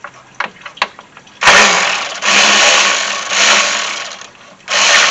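Power tool fitted with a 10 mm socket run in four bursts of about a second each, undoing a cooling-fan mounting bolt. A couple of light clicks come before the first burst.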